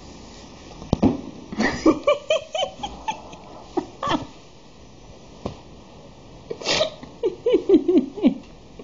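A small kitten giving quick runs of short, wavering cries, twice, with a few sharp knocks of handling in between.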